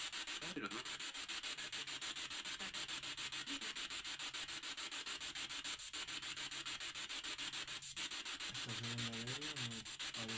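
Steady hiss of static, chopped into rapid regular pulses about eight times a second. Near the end a short, wavering voice-like sound rises and falls within the hiss.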